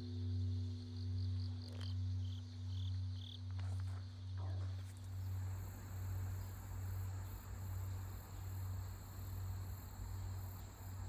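Lingering hum of a large bronze Korean temple bell (beomjong) dying away after a strike. Its low tone swells and fades in a slow, regular beat, about three swells every two seconds, and its higher tones die out about halfway through. Crickets chirp alongside.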